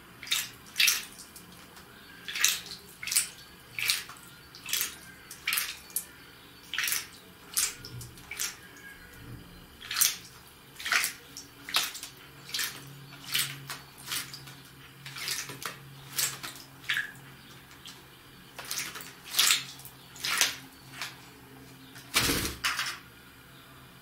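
Common blackbird bathing in a shallow plastic tub of water: short bouts of splashing, one every half second to a second, with a last, louder splash near the end.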